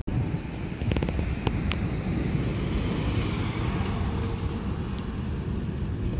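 Wind buffeting the microphone with a steady low rumble, while a pickup truck drives past close by, its tyre hiss swelling and fading near the middle. A few sharp clicks about a second in.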